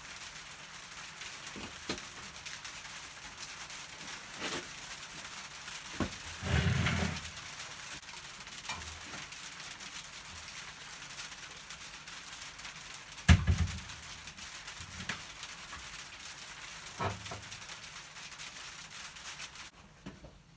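Heavy metal bench lathe being shifted into position on a workbench: scattered knocks and scrapes over a steady hiss, with a scraping shove about a third of the way in and one heavy thump a little past halfway.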